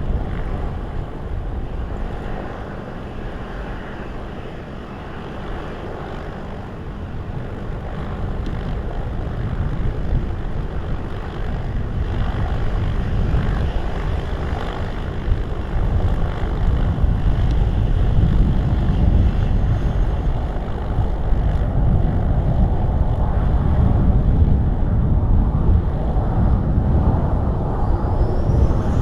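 Airliner jet engines rumbling, growing louder over the first half and staying loud, with strong wind buffeting the microphone.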